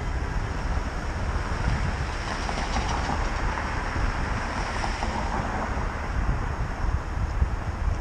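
Wind rumbling on an action camera's microphone, over the steady noise of street traffic.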